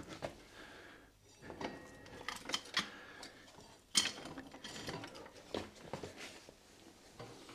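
Irregular metallic clinks and scraping as the rear wheel axle of a Royal Enfield Classic 350 is drawn out through the wheel and its spacers, with a sharper clink about four seconds in.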